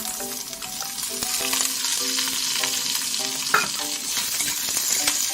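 Pork cartilage sizzling in a hot pan as it is stir-fried with garlic and shallots, with one sharp knock about two-thirds of the way through.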